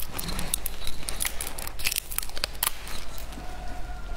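Crisp plastic clicks and crinkles as a plastic syringe-shaped candy tube is handled and opened, a quick irregular run of sharp ticks.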